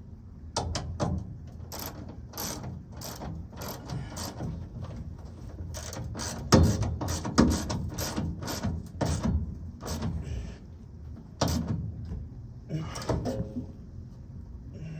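Hand ratchet clicking in short, irregular runs with some sharper metal knocks, as a bolt is run in and tightened on a truck's spare tire hoist.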